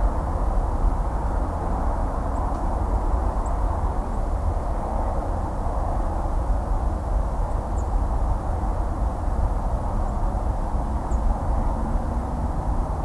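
Distant highway traffic: a steady wash of tyre and engine noise with a deep low rumble underneath, even in level throughout.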